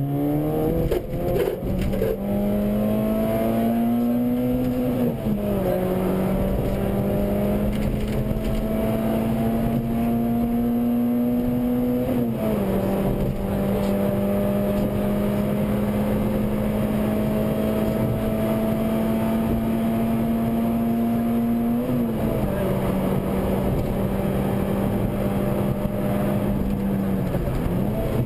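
Rally car engine heard from inside the cabin, accelerating flat out along a straight: its pitch climbs slowly in each gear, with upshifts about 5, 12 and 22 seconds in and a brief lift-off near the end.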